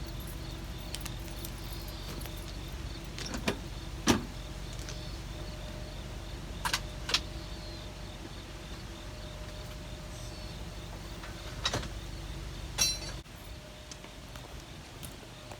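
A vehicle engine idling with a steady low rumble, with a few sharp metallic clinks and knocks over it. The rumble stops abruptly about two seconds before the end.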